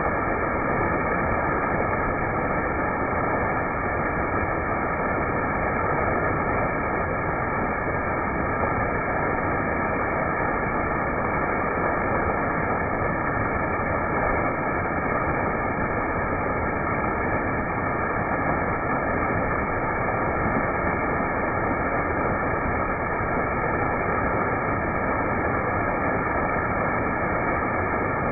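Waterfall: falling water making a steady, even noise that does not change.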